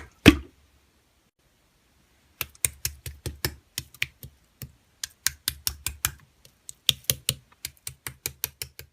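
Slime being pressed and poked, giving runs of quick sharp clicking pops, about four to five a second, in three bursts with short pauses between them.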